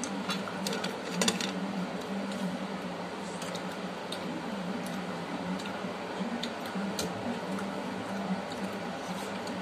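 Hands eating rice and curry from steel plates: soft squishing and scattered small clicks over a steady background hum, with one sharper click about a second in.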